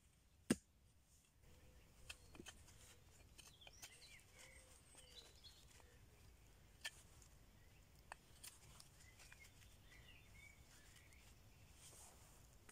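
A single sharp knock from a hatchet striking a rotten log about half a second in. After it comes a faint outdoor background of bird chirps and a few small clicks.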